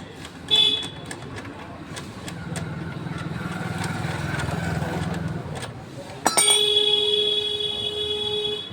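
Road traffic: a vehicle's low engine rumble rises and passes, then a loud steady horn blast starts suddenly and is held for about two seconds near the end.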